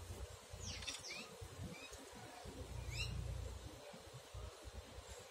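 Birds chirping: a quick cluster of high chirps about a second in and a short series of rising chirps around three seconds, over a faint low rumble.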